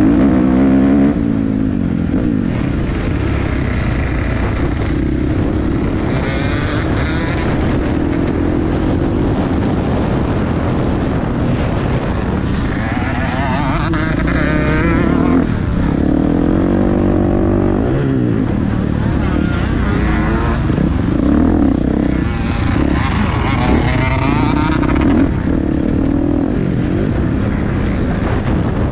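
Motocross bike engine at racing speed, its pitch rising and dropping back again and again as the rider works the throttle and gears around the track.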